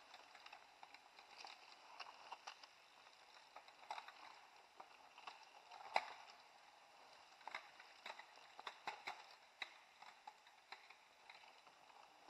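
Mountain bikes passing on a dirt forest trail: faint scattered clicks and crackles of tyres over twigs and ground, with a sharper click about six seconds in.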